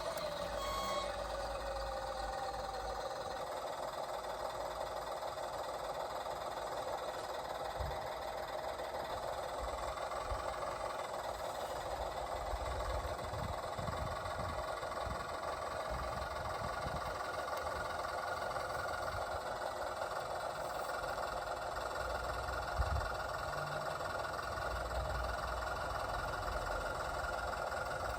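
Radio-controlled model construction vehicles running: a steady mechanical whir with low rumbling, and one sharp knock near the end.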